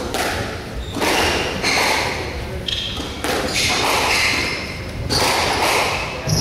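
A squash rally: the hard rubber ball cracks off rackets and the walls, with a hard hit every second or two that rings in the hall. Short high squeaks from court shoes on the wooden floor come between the hits.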